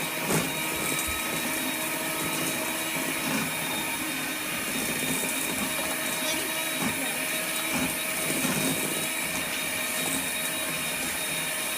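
Electric mixer running steadily at speed with a high whine, beating butter, shortening and sugar with almond and vanilla extract into cupcake batter.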